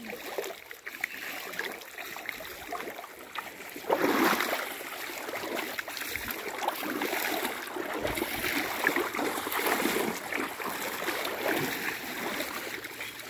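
Shallow river water sloshing and splashing around a drag net being hauled through it by people wading, louder from about four seconds in.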